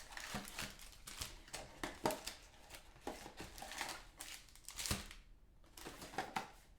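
A sealed hobby box of trading cards being handled and opened: an irregular run of short clicks, taps and crinkles from cardboard and wrapping, with a brief pause near the end.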